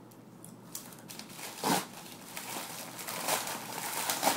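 A UPS shipping bag crinkling and rustling as it is handled. It starts about a second in and grows denser in the second half.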